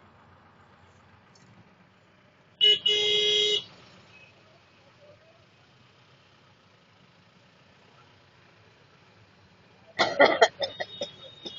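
A vehicle horn sounds about two and a half seconds in: a short toot, then a steady blast of about a second. Near the end a person breaks into coughing, several coughs in quick succession, over a low background hum.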